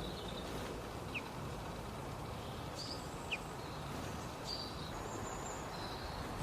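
Birds giving scattered short, high chirps over a steady background hiss, with two quick sharp notes about a second in and again past three seconds.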